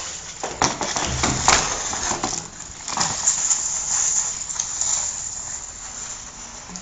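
Irregular knocks and clatter of plastic ABS drain pipe being handled, with scraping and rustling between the knocks.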